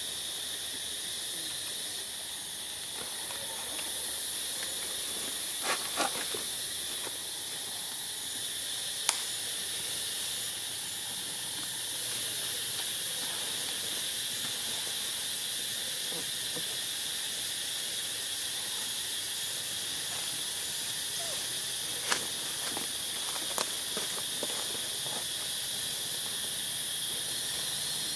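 Steady high-pitched drone of a forest insect chorus, with a few short sharp clicks scattered through it.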